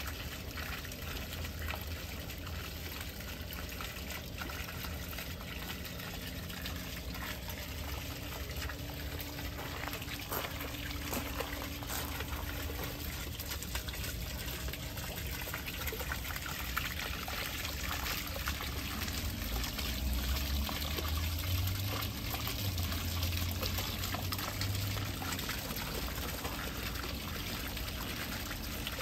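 Steady trickle of water falling into a koi pond.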